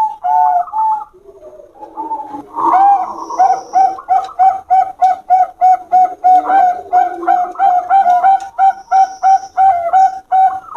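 Zebra doves (perkutut) cooing: a few notes, a short pause, then a fast even run of short coos at about three a second.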